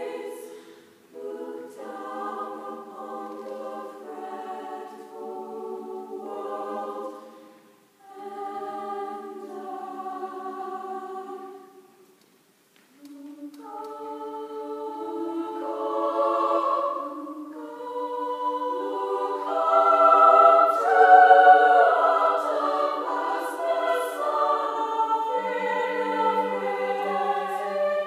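A small girls' vocal group singing unaccompanied in harmony, in phrases broken by brief pauses, growing louder through the second half.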